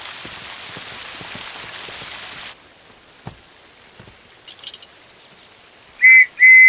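Steady splashing of falling water, which stops about two and a half seconds in. Near the end a guard's whistle blows, one short blast and then a longer, louder one.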